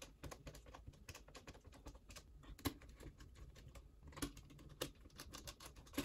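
Faint, irregular light clicks and taps of a small screwdriver driving screws back into a 2.5-inch SSD's mounting bracket inside a laptop.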